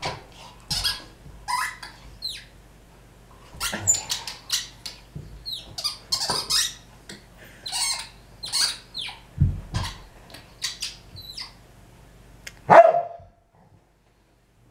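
A dog barking in short, repeated bursts, mixed with the squeaking of a rubber squeaky ball as it is chewed. The loudest sound comes near the end.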